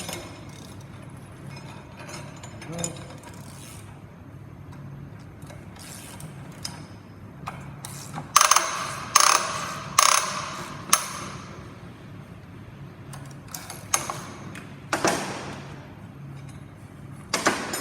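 Ratchet wrench clicking as it turns the nut of a power steering pulley installer tool, pressing the pulley onto a GM power steering pump shaft. The clicks come as separate sharp strokes, loudest in a cluster of four or five about halfway through.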